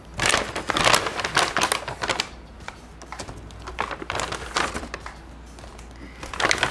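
Paper carrier bag rustling and cardboard takeaway boxes knocking as they are pulled out one by one and stacked on a table, in three bursts about two seconds apart.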